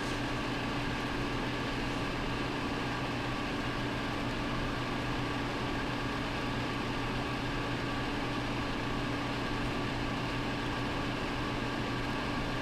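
Steady machine hum made of several constant tones over a faint hiss, unchanging throughout.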